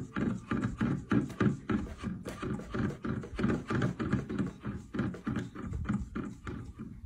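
A cat tapping a plastic water bottle with its paw: quick, repeated light taps, about three a second.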